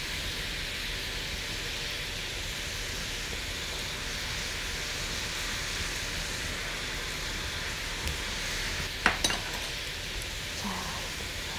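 Ginger soy sauce bubbling and sizzling steadily in a nonstick frying pan as whole abalone are laid into it. A couple of sharp clicks about nine seconds in.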